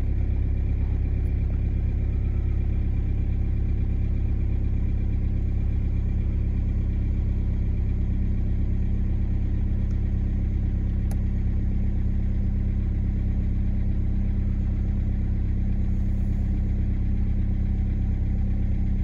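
BMW E46 320d's four-cylinder turbodiesel idling steadily at about 1,000 rpm, still cold after a start at −4.5 °C, heard from inside the cabin.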